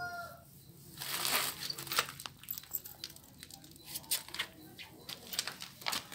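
Close-up rustling and crackling with many sharp clicks, from the phone being moved and rubbed as it is carried over earthquake rubble. A brief high call, falling slightly in pitch, sounds at the very start.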